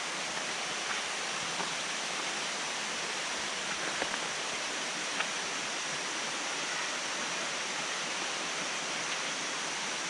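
Steady rush of water from the Erawan waterfall's cascades, an even hiss with a few faint clicks.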